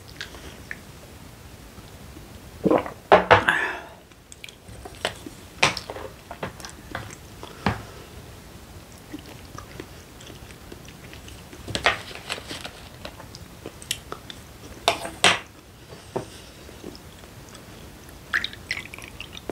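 Close chewing and eating sounds, with scattered clicks and knocks from a wooden spoon and dishes on a plastic lunch tray. Near the end, soju is poured from a glass bottle into a small glass.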